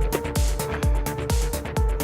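Electronic background music with a steady kick-drum beat about twice a second, hi-hats and held synth notes.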